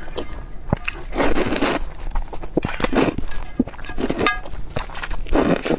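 A person slurping noodles at close range, four long slurps about a second apart, with short clicks and chewing sounds between them.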